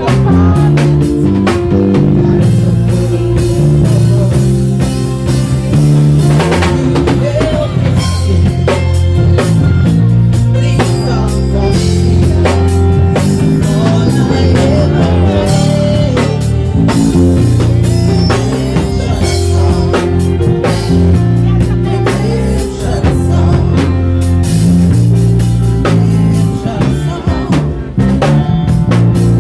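A live band playing loud music with a steady drum-kit beat over a moving bass line.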